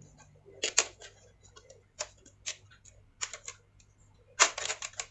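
Plastic screen bezel of an Acer Swift 3 laptop being pried off, its clips clicking as they come loose: scattered sharp clicks, then a quick run of them near the end.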